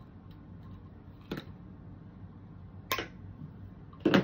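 Wire cutters snipping through the wire stems of artificial lemon picks: three sharp clicks about a second and a half apart, the last the loudest, over a low steady hum.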